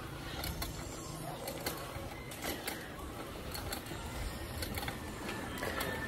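Bicycle being ridden, with irregular clicks and rattles from its parts over a steady low rumble.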